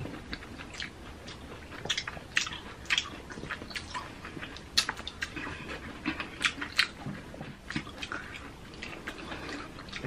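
Close-up wet mouth sounds of two people eating: chewing, lip-smacking and licking whipped cream off their fingers, heard as many short, irregular smacks and clicks.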